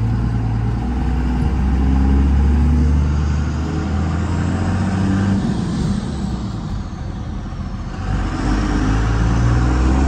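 Second-generation Dodge Ram's 24-valve Cummins turbodiesel with an aftermarket exhaust, heard from inside the cab as the truck pulls away and accelerates through the gears of its five-speed manual. The engine note eases off a little past halfway and picks up again about two seconds later.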